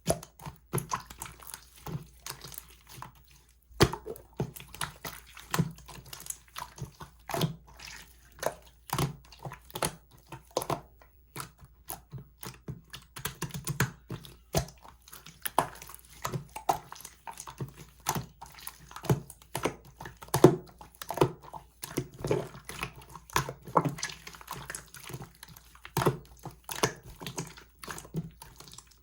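Slime being squished and poked by hand, making a quick, irregular run of wet clicks and pops, with a short pause about three seconds in.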